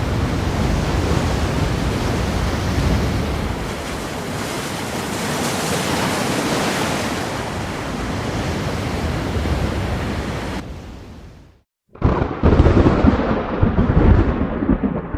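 Ocean waves breaking, a steady wash of surf, fading out to a moment of silence about eleven and a half seconds in. Right after the gap a different, louder noise with heavy low rumbles starts.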